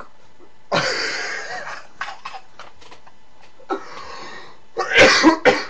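A young man's breathless, wheezing laughter, forced out in noisy gasps with his hand over his face: one long wheeze about a second in, a shorter one later, and the loudest fit near the end.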